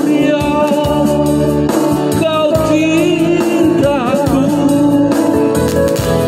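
A man singing into a handheld microphone over backing music, holding long notes with a wavering vibrato over sustained chords.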